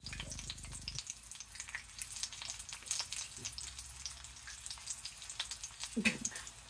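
Thick bone-in pork chop searing in oil in a cast-iron skillet: a steady sizzle with many small crackling pops. About six seconds in there is a brief low thump as the microphone is handled close to the pan.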